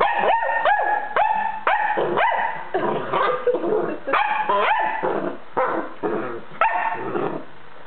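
A puppy barking over and over in high, sharp play barks, about two a second with a couple of short pauses, while crouched in a play bow at a stuffed toy.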